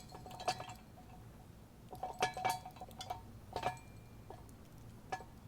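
Steel-on-steel clinks and taps as the hitch pin is lined up and pushed through the motorhome's hitch receiver and the mount's receiver bar, each knock ringing briefly. A few light clinks come about half a second in, a louder cluster about two seconds in, and single taps near three and a half and five seconds.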